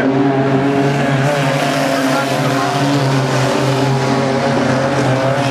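Pack of wingless sprint cars racing on a dirt speedway, their engines running at speed in a steady drone that rises and falls slightly in pitch.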